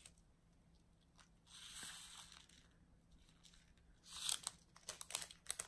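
A small plastic bag of diamond-painting rhinestone drills rustling as it is handled. About four seconds in comes a quick run of small clicks as the rhinestones are tipped into a plastic drill tray.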